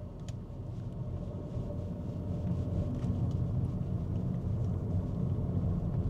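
Car interior road noise: a steady low tyre-and-road rumble from driving over patched, uneven asphalt, growing a little louder, with a few faint clicks.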